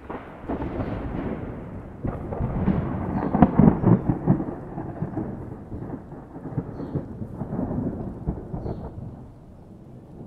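Rolling thunder. A long, low rumble with crackles swells to its loudest about three to four seconds in, then slowly fades away.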